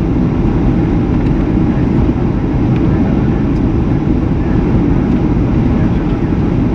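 Steady roar inside an airliner's cabin in flight on approach: engine and airflow noise, heaviest in the low end.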